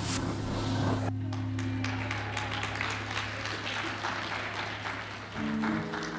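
Live church band playing soft background music, with long held bass notes and sustained chords that change near the end. Over it, from about a second in, a light patter of audience clapping.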